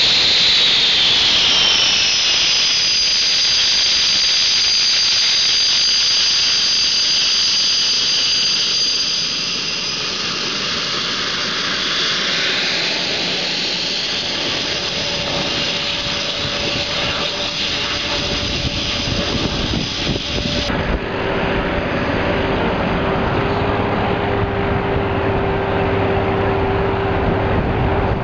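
Panavia Tornado's twin turbofan engines running with a loud rush and a high steady whine; about 21 s in the sound changes abruptly to a lower steady drone.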